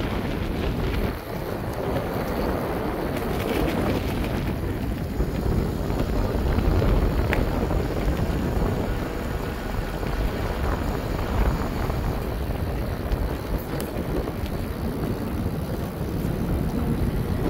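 Wind buffeting the microphone on a moving bicycle: a steady low rushing noise.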